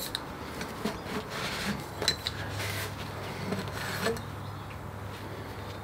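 Faint handling noises, light rubbing and a few small clicks, as a turbo-to-intercooler intake pipe is handled, over a low steady hum.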